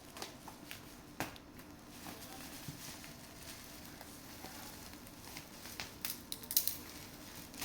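Faint handling noises of packaging being opened: scattered clicks and rustles, with a quick cluster of sharper clicks and crackles about six seconds in.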